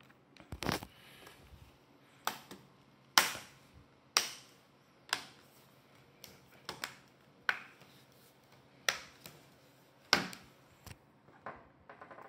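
VAIO SX14 laptop's bottom cover being pressed back on by hand, its clips snapping into place one after another: about a dozen sharp clicks, roughly one a second.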